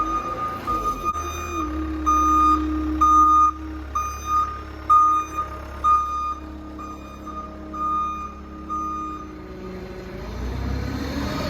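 Reversing alarm on a piece of heavy equipment, beeping about twice a second over its running diesel engine. The beeping stops near the end, leaving the engine running.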